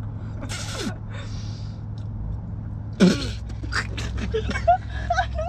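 Breathy sucking through a race-car drink tube, then a sudden gasp and splutter about three seconds in as a mouthful of dirty water comes up, followed by short choppy mouth noises.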